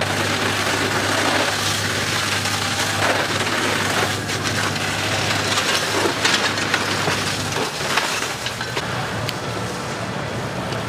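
A fireboat's engine hums steadily under a loud rushing hiss of water spray, with irregular cracks and snaps over it; the hum stops about three quarters of the way through.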